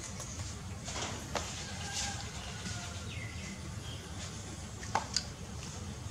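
Puppies suckling from their mother: scattered soft clicks and smacks, two sharper ones about five seconds in, with a few faint short chirps over a steady low hum.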